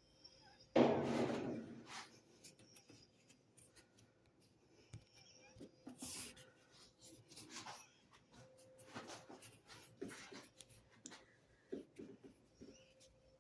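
Aluminum soda can tabs and beads clattering: a sudden rush about a second in that fades over about a second, then scattered light clicks and rustles as the small pieces are handled.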